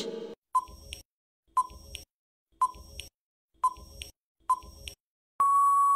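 Quiz countdown timer sound effect: five short beeps about a second apart, then one longer steady beep near the end as time runs out.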